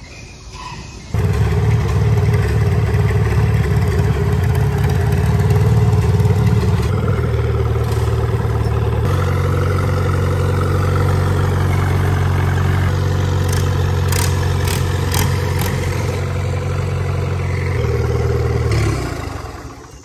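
Engine of a small vintage red tractor running steadily under way. It comes in suddenly about a second in, its note changes about nine seconds in, and it fades out near the end.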